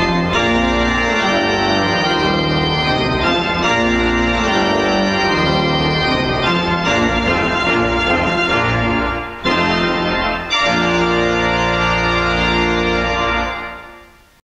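Two-manual church organ played on manuals and pedals in full sustained chords, with two short breaks about nine and a half and ten and a half seconds in. A final chord is released near the end and dies away in the reverberation.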